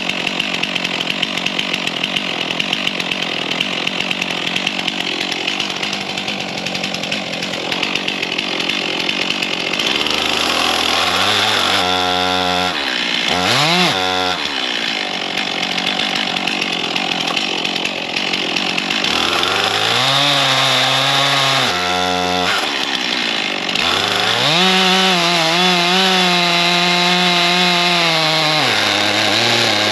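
Stihl two-stroke chainsaw cutting into a downed ash log at full throttle for about the first ten seconds. It then runs out of the cut, its engine note dropping and revving back up several times.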